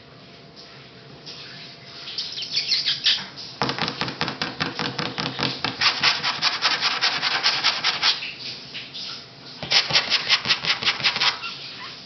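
Rapid scratchy rubbing strokes, about nine a second, in a long run through the middle and a shorter run near the end.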